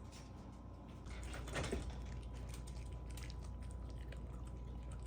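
Dogs eating their food, a run of small chewing and biting noises, over a steady low hum that gets louder about a second in.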